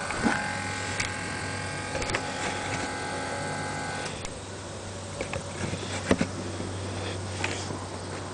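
A 1997 Ford Explorer's 5.0 V8 idling quietly through a MAC 3-inch cat-back exhaust, a steady low hum. A higher steady whine runs alongside it and stops about four seconds in, and a few sharp clicks are heard.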